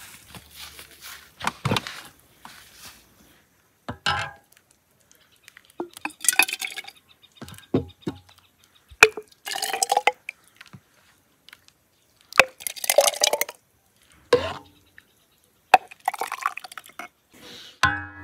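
Glass jars clinking and being set down, with liquid splashing as it is poured from a mug into a glass jar, in short separate bursts.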